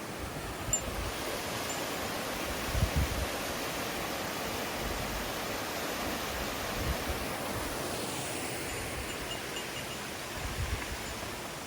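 Steady rush of water from a mountain stream or waterfall, with a couple of brief low rumbles of wind on the microphone.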